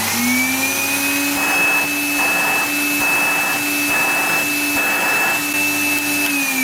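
Bagged vacuum cleaner's motor running, its whine still rising in pitch for the first second, then steady, and falling as it is switched off near the end. The full dust bag is being pulled against the motor's air opening at the rear.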